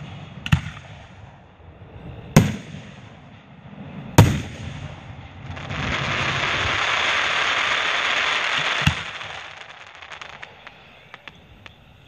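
Aerial firework shells bursting with sharp bangs, four in all. Between the third and fourth bang comes about three seconds of dense, steady crackling as a shell's glittering stars fall, and a few scattered small crackles follow near the end.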